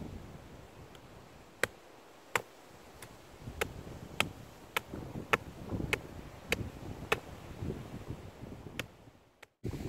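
A hatchet striking the top of a forked wooden stake to drive it into the ground: a steady series of about a dozen sharp wooden knocks, nearly two a second, the first two the loudest. Low rustling of grass and wind on the microphone underneath.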